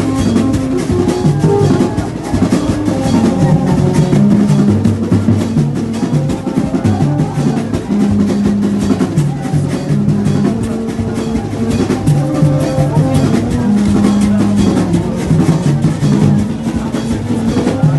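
Vodou ceremony drumming: fast, dense drum strokes over a low melodic line that holds each note for about a second.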